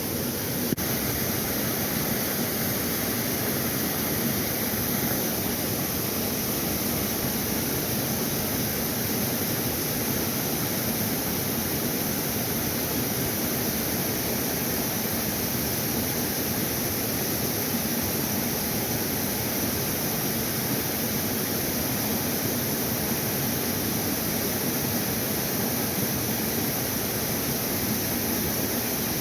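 Steady rushing of flowing creek water, an even hiss that does not change.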